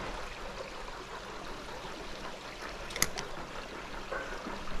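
A small, shallow creek running and trickling, a steady wash of water, with one sharp click about three seconds in.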